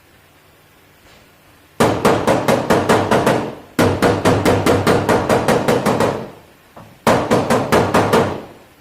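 Hammer rapidly striking car body sheet metal, about five or six blows a second, in three runs broken by short pauses, the last run the shortest.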